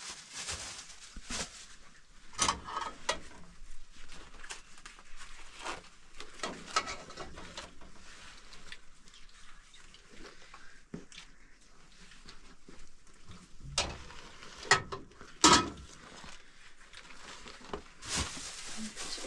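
Spoons and a ladle clinking and scraping against metal plates and a cooking pot as a meal is served and eaten, in irregular small clatters with a few sharper clinks about two-thirds of the way through.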